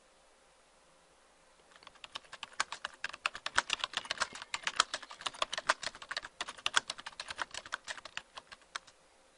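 A sample of fast typing on a computer keyboard: a dense run of key clicks that starts about two seconds in and stops near the end.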